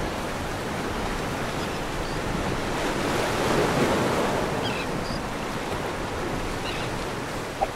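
Ocean surf washing onto a beach: a steady rush of breaking waves that swells a little around the middle.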